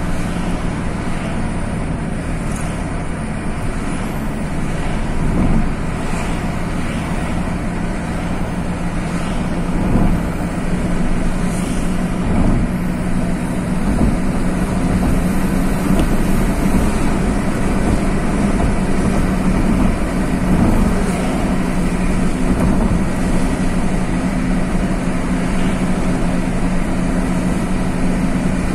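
Car driving along a road, heard from inside the cabin: a steady low engine hum over even tyre and road noise, with a few brief knocks from bumps in the road.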